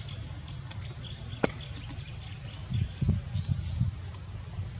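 Forest ambience: a steady low rumble, with faint bird chirps scattered through. One sharp click comes about a second and a half in, and a few low thumps follow around the three-second mark.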